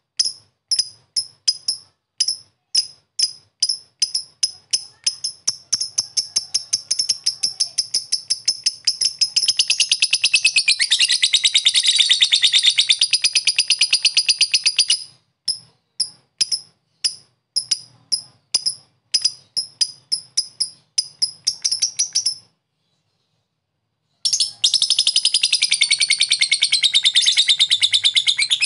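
Lovebird calling: sharp, evenly spaced chirps (the 'ngetik' typing call) speed up and run together into a long unbroken rapid chatter (the 'ngekek' trill). It breaks back into separate chirps, then, after a couple of seconds of silence, launches into a second long chatter.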